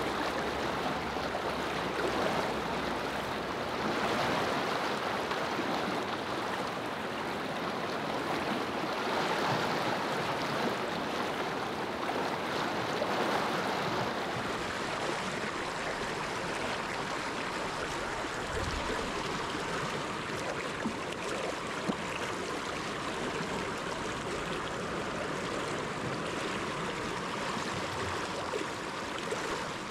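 A small mountain river flowing, a steady rush of water.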